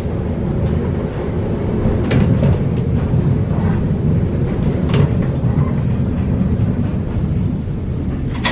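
Vintage tram running along its track, heard from inside the car: a steady low rumble with a few sharp clicks, about two and five seconds in.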